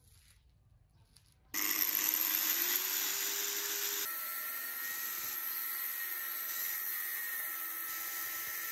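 Angle grinder with a cut-off disc switched on about a second and a half in, spinning up with a slight rising whine, then cutting through a steel bar clamped in a vise with a steady loud grinding hiss.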